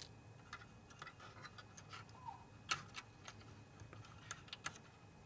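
Faint, scattered clicks and taps of small parts being handled while a colour-wheel motor sensor is removed and fitted.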